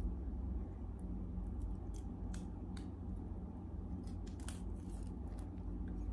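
Kitchen knife slitting along fresh sataw (stink bean) pods, a scatter of small crisp cuts and snaps, over a steady low hum.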